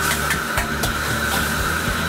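A steel bowl scraping and knocking against a hot, wet wok as it is rinsed out, with a few sharp metal clanks. Under it runs the steady noise of a commercial wok range's burner and fan.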